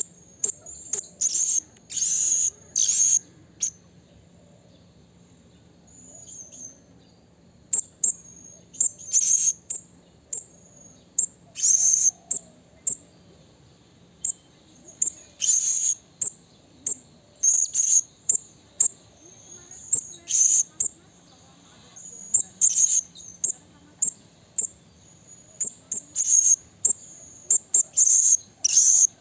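Blue-crowned hanging parrot (serindit) calling: short, very high, thin call notes repeated in irregular clusters, with a pause of a few seconds near the start.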